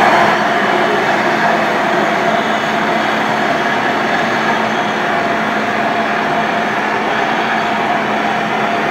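Radio-controlled model Komatsu D65PX bulldozer running as it pushes sand, its drive motors and tracks making a steady mechanical whir with a faint low hum.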